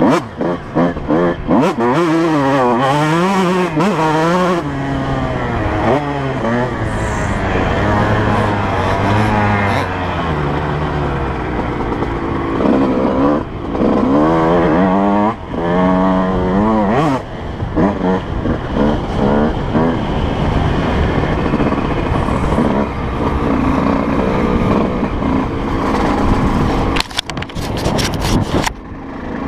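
Dirt bike engine revving hard and easing off again and again as the rider works through corners and straights on a motocross track, heard from the rider's helmet camera. Near the end the throttle is cut for a moment, then the engine picks up again.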